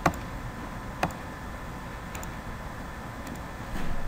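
Computer mouse clicking: two sharp clicks about a second apart near the start, then a couple of fainter clicks, over a steady low room hiss.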